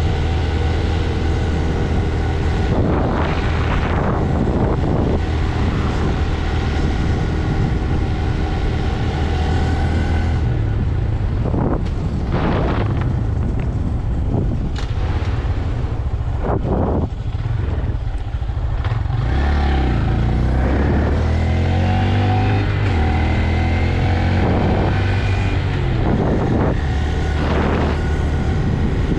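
Stock Honda Grom's single-cylinder engine running under way with wind noise; about two-thirds in the revs drop, then climb again in several rising sweeps as it pulls up through the gears.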